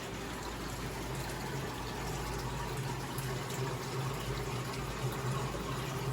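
Large saltwater aquarium's water circulation running: a steady rush and trickle of moving water over a low pump hum.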